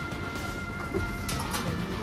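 Background music, with a couple of held high notes that fade near the end.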